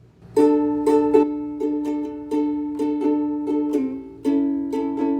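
Chords strummed on a small plucked string instrument, starting about half a second in, with a strum roughly every half second and a change of chord after about four seconds.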